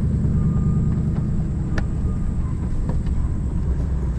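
A vehicle driving, its engine and road noise making a steady low rumble, with a few sharp clicks or rattles.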